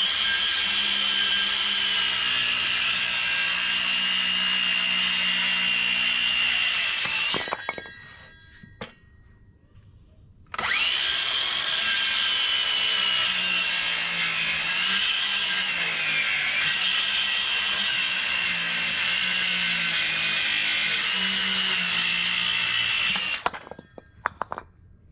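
Circular saw cutting through a 4x4 in two cuts: the blade's high whine runs until about seven seconds in and winds down, then after a short pause with a few clicks starts again for a longer cut of about thirteen seconds, its pitch dipping briefly under load midway before it winds down near the end. The 4x4 is too thick for one pass, so it is cut from the top and then the bottom.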